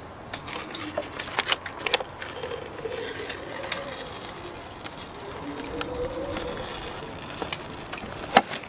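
Paper application tape crackling and crinkling as it is peeled off vinyl boat-name lettering, with sharp crinkles mostly in the first two seconds and one more near the end. A faint hum rises and falls in pitch under it.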